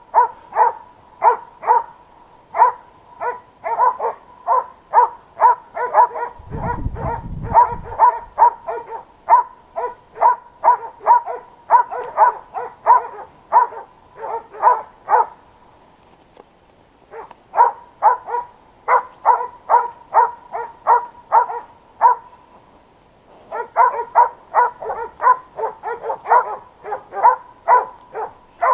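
Boar-hunting dog barking in a fast, steady run, about two to three barks a second at an even pitch. It breaks off briefly a little past halfway and again about three-quarters through. There is a short low rumble about seven seconds in.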